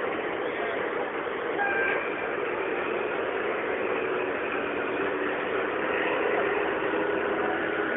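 Steady, even din of an exhibition hall, with model trains running on a layout track, heard through a mobile phone's microphone.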